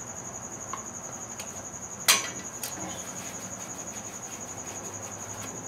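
A sharp click about two seconds in and a fainter one half a second later as a bearing cap and rag are handled, over a steady high-pitched trill.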